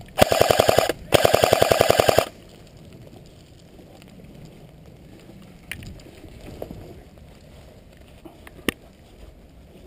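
Airsoft electric gun firing on full auto in two rapid bursts close to the microphone: a short burst, a brief pause, then a slightly longer burst. A few faint clicks follow.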